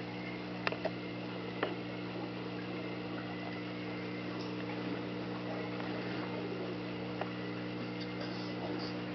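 Aquarium air pump running with a steady electric hum, with three faint clicks within the first two seconds.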